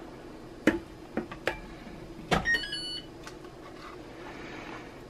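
Serving spoon knocking a few times against the pot and pan while meat sauce is ladled out, over a steady low hum. About two and a half seconds in, a short electronic beep sounds: the oven signalling that it has finished preheating.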